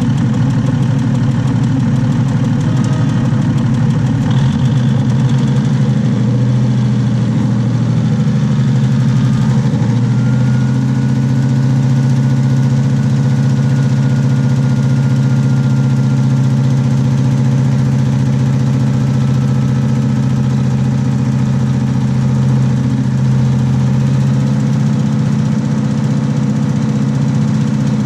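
Diesel railcar's underfloor engine running steadily, heard close up from beneath the carriage. About ten seconds in its note shifts and a faint high whine starts and slowly falls, as the railcar begins to roll forward.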